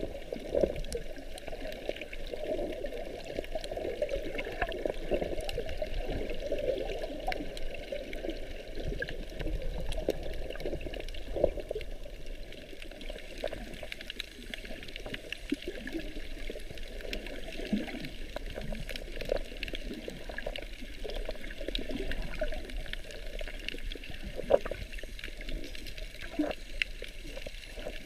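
Muffled water movement heard underwater through a GoPro HERO4 Silver's waterproof housing: a steady low wash and sloshing, with scattered faint clicks and knocks.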